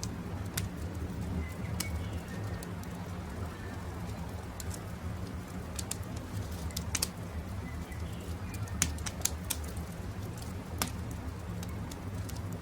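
Crackling campfire: irregular sharp pops and snaps over a low steady rumble, with a few faint bird chirps in the background.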